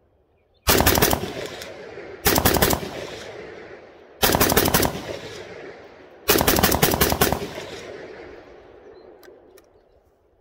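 Arsenal SAM7F-62 7.62x39 rifle with a VG6 muzzle brake fired in four rapid strings of several shots each, about two seconds apart. Each string is followed by a long fading echo.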